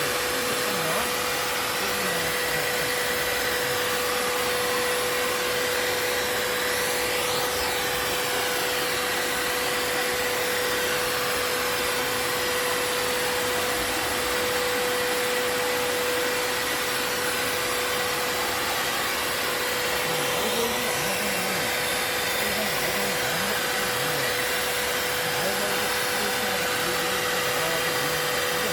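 Vacuum cleaner running steadily, with a constant motor whine over the rush of suction; its sound shifts briefly twice as the air flow changes.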